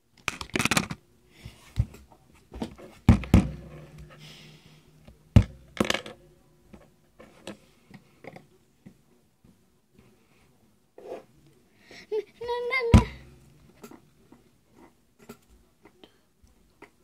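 Fluffy slime being handled and squeezed, with scattered sharp slaps and pops: a cluster about three seconds in, two more around five to six seconds, and the loudest near thirteen seconds in. A short vocal sound comes just before that last slap.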